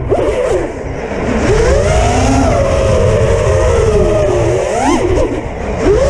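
Six-inch FPV quadcopter's motors and propellers whining, the pitch climbing and falling with the throttle. There is a punch about a second and a half in that eases off slowly, then a sharp quick rise and drop near five seconds. Wind rumbles on the onboard camera's microphone throughout.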